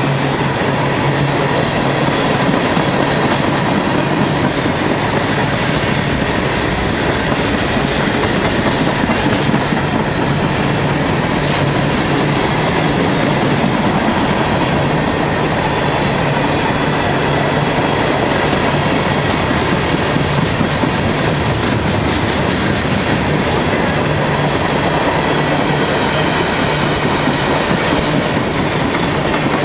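Freight train of tank cars, covered hoppers and boxcars rolling steadily past at close range: steel wheels clacking over the rail joints under a constant loud rumble.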